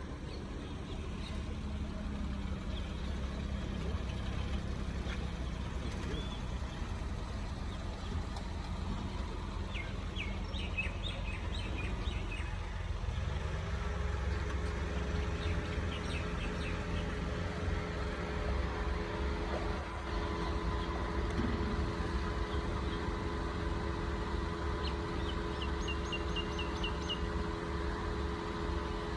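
Datsun hatchback's small petrol engine running at low speed as the car creeps through a tight course. Its pitch rises about halfway through and then holds steady. Birds chirp briefly twice.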